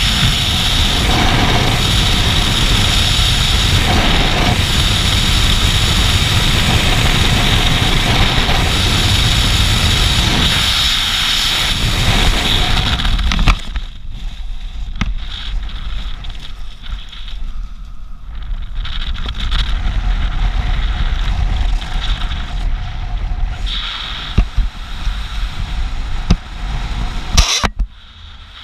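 Loud, steady wind rushing over the camera microphone in skydiving freefall. About halfway through there is a sharp snap as the parachute opens, and the rush drops off suddenly to lighter, gusting wind with occasional clicks under the canopy.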